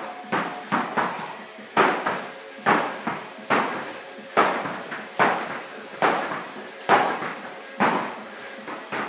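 Heavy battle ropes slapping the floor mat: quick alternating waves for about the first second and a half, then both ropes slammed down together a little faster than once a second.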